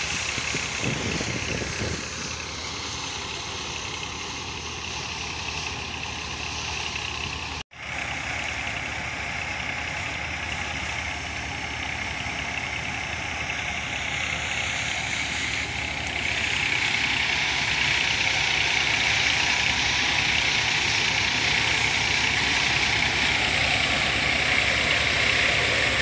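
Tractor engine driving a wheat thresher, running steadily. It drops out briefly about eight seconds in and grows louder from about sixteen seconds in.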